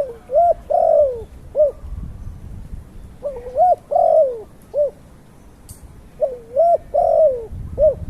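A bird cooing: a phrase of several short notes, each rising then falling, repeated three times about three seconds apart.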